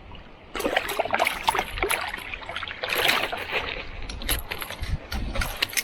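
Irregular splashing and quick knocks and clatters at a kayak, most likely a hooked eastern cod thrashing at the surface as it is brought alongside.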